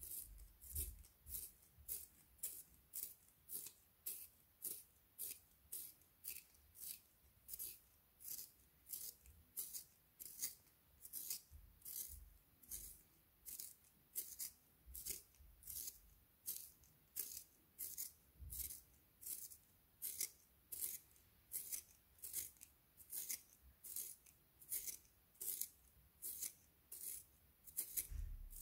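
Red wooden pencil being turned in a small plastic hand-held pencil sharpener. The blade shaves the wood in short, crisp scraping strokes, about two a second, in a steady rhythm.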